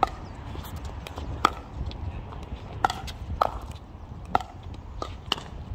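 Pickleball rally: paddles striking the hollow plastic ball, about seven sharp pops at irregular intervals.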